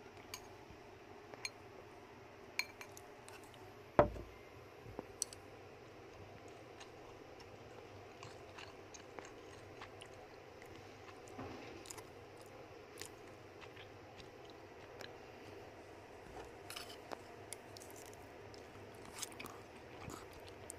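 A rodent in a plastic cone chewing food from a stainless steel bowl, with small clicks and taps as it eats and the cone touches the bowl, and one louder knock about four seconds in.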